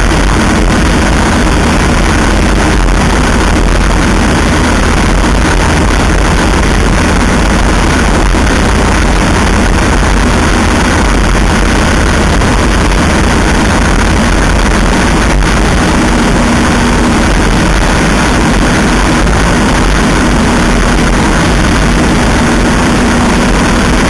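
A 1946 Ercoupe's Continental C-85 flat-four engine running steadily in flight. It is heard from a camera under the belly, with heavy wind rush over it.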